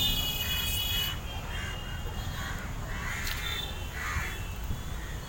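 Crows cawing, about five separate caws spread over a few seconds, over a steady low outdoor rumble.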